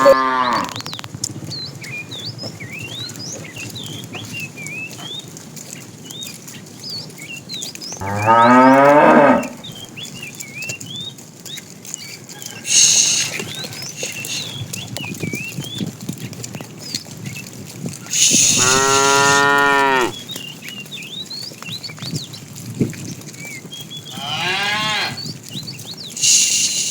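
Cattle mooing: three drawn-out moos, one about eight seconds in, a louder, longer one of about two seconds near eighteen seconds, and a softer one near twenty-four seconds. Small birds chirp faintly between the calls.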